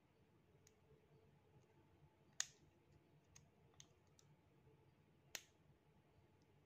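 Small sharp clicks of a ballpoint pen tip prying inside an opened smartwatch, lifting the three contacts that had sunk too low to touch the battery, which kept the watch from switching on. There are two louder clicks, about two and a half seconds in and near five and a half seconds, with a few fainter ticks between.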